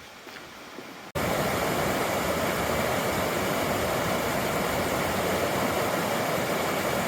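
River water rushing steadily, an even noise that starts suddenly about a second in and holds at one level.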